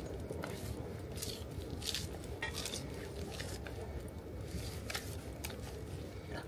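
Knife cutting grill sausages on a small cutting board: a scatter of short, faint cuts and scrapes over a steady low rumble.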